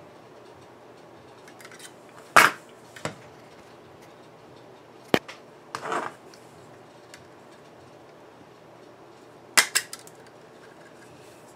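Hand-held hole punch pliers snapping shut as holes are punched through the edge of a subwoofer voice-coil former, mixed with clicks from handling the tool and the coil. Several sharp snaps are spread apart, the loudest a quick double snap near the end.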